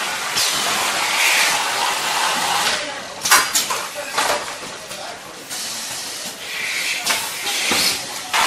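Automatic carton sealing machine running, with long stretches of high, rushing noise. Several sharp mechanical clacks come a little past three seconds in, around four seconds, and twice near the end.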